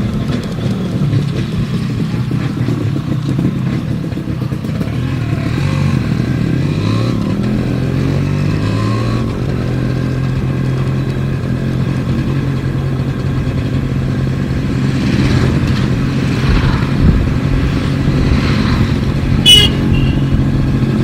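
Yamaha RX135's two-stroke single-cylinder engine running under way, its pitch rising and falling with throttle and gear changes in the first half, then holding steady. A short high-pitched beep sounds near the end.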